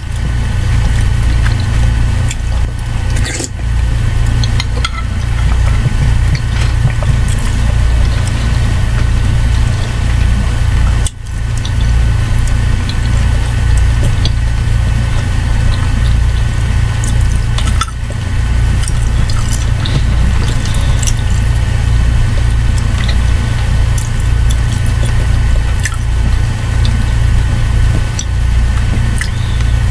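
Close-miked eating sounds, wet mouth noises and small clicks, over a loud steady low hum.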